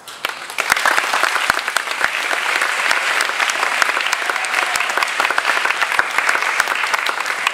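Audience applauding: a dense patter of many hands clapping that starts suddenly and swells within the first second, then holds steady.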